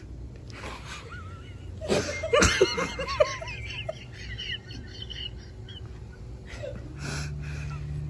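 A woman laughing hard: a quick run of loud ha-ha pulses about two seconds in, lasting over a second, then fading into softer giggles.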